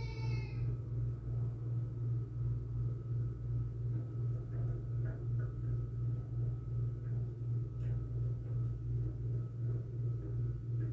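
A low steady mechanical hum, throbbing evenly a few times a second.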